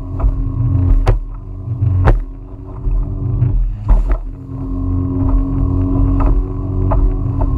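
Small outboard motor running steadily on a micro skiff crossing chop, with wind rumbling on the microphone. The hull slaps the waves in sharp knocks about one, two and four seconds in, and the engine note drops back briefly around three seconds in.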